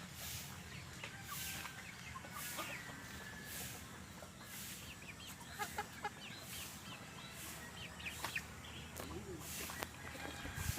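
Free-range chickens clucking, with many short calls scattered throughout. A high hiss pulses about once a second beneath them.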